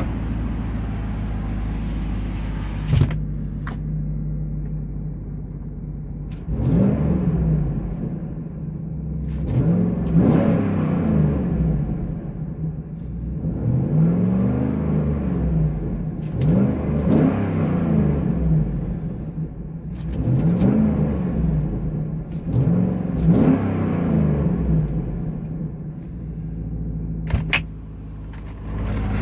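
2008 GMC Sierra Denali's 6.2 L L92 V8 idling and being revved about six times, each rev rising and falling in pitch. The exhaust has a leak just before the secondary catalytic converter and the resonator deleted. A couple of sharp clicks come in about three seconds in and near the end.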